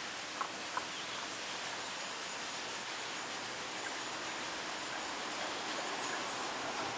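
Tago's brown frog calling from hiding: two short notes in the first second, then only a steady hiss.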